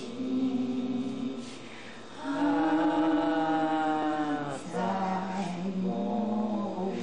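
A woman singing a slow melody into a handheld microphone in long drawn-out notes. The loudest and highest note is held for over two seconds in the middle.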